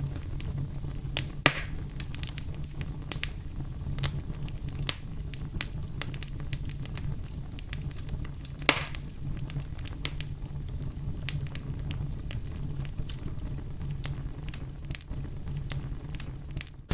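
Campfire crackling: burning wood snapping in many small irregular clicks, with two louder pops about a second and a half in and near the middle, over a low steady rumble.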